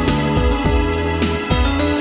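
Background music: gentle instrumental with plucked notes and a steady bass.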